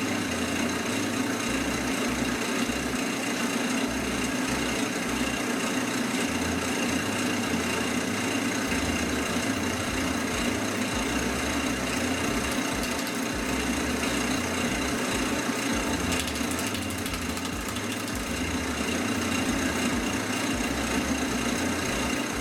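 Wood lathe running steadily at speed, spinning a mounted canvas, with a constant motor hum and a high whine.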